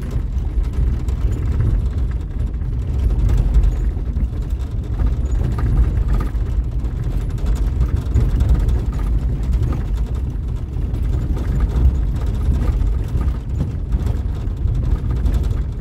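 A van driving slowly on a dirt road, heard from inside the cab: a steady low road and engine rumble with frequent small rattles and knocks from the rough surface.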